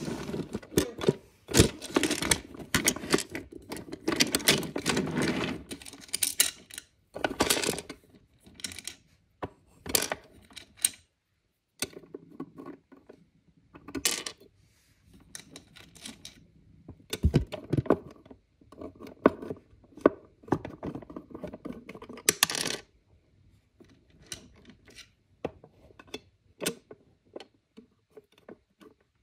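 Wooden toy trains and small toy pieces being handled, pushed and set down on a play table: irregular clicks, knocks and clinks, busiest in the first few seconds, then sparser with short pauses.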